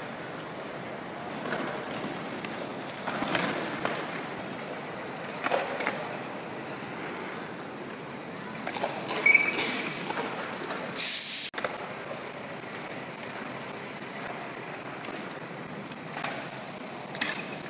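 Wheels rolling over skatepark asphalt, skateboard and BMX bike, a steady rolling noise with scattered scrapes and clacks. A loud brief hiss about eleven seconds in cuts off suddenly.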